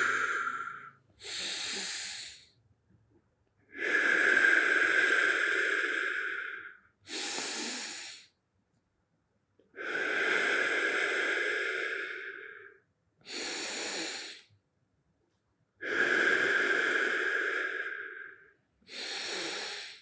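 A man taking slow, deep, audible breaths into the diaphragm while holding a stretch: a short breath of about a second alternating with a longer one of about three seconds, about three full cycles, with quiet gaps between.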